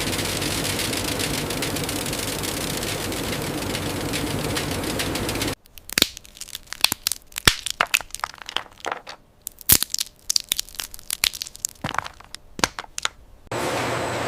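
Steady machinery noise that cuts off abruptly about five and a half seconds in, giving way to a run of irregular sharp cracks and crunches. The steady machinery noise comes back near the end.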